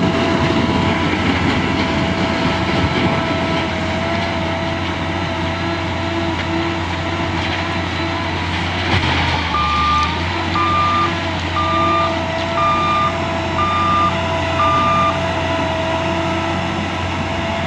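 L&T 9020 wheel loader's diesel engine running steadily with a constant whine. About halfway through, a reversing alarm beeps six times, about once a second.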